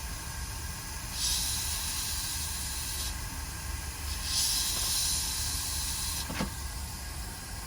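Hot-air rework station blowing, a steady hiss of air that grows louder twice for about two seconds each.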